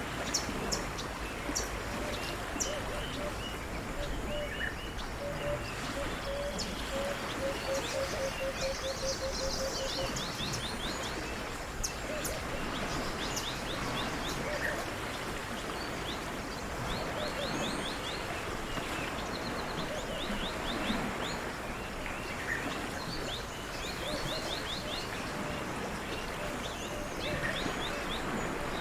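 Birds chirping and trilling over a steady hiss of outdoor background noise. Between about five and ten seconds in, a low call of quickly repeated notes runs alongside.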